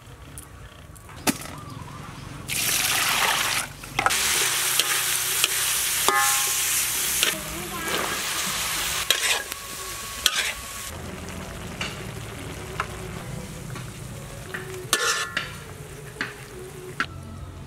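Stir-frying in a hot wok: food sizzling loudly for about five seconds, then a quieter sizzle, with a few sharp clicks along the way.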